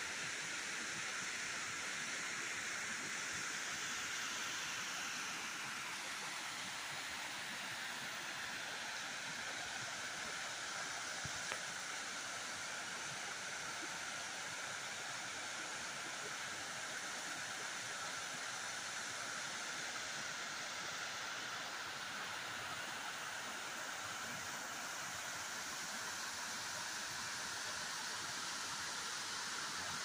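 Steady rush of water from a waterfall and the stream below it, an even hiss with no change.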